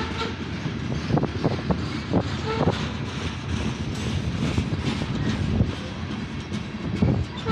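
Freight train of covered hopper cars rolling past: a steady rumble of wheels on rail with irregular clanks and clicks as the wheels cross rail joints, and a few brief metallic rings.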